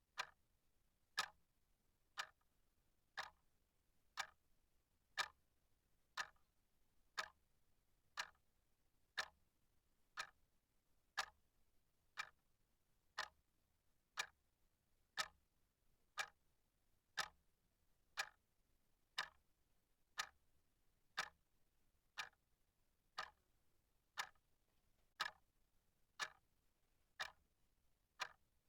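Clock ticking steadily, one sharp tick about every second, with near silence between ticks.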